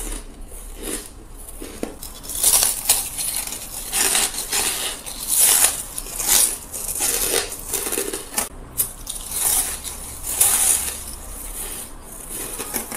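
Close-up bites and chewing of fluffy, dry shaved ice: a quick run of crisp crunches. The crunches are sparse at first, thickest through the middle, and thin out near the end.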